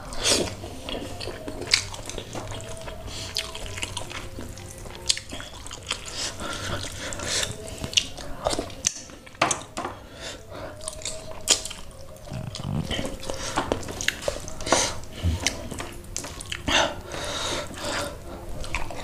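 Wet mukbang eating sounds: chewing and lip-smacking on a mouthful of rice and snapper head in gulai curry, eaten by hand. They come as an irregular run of short wet clicks and smacks.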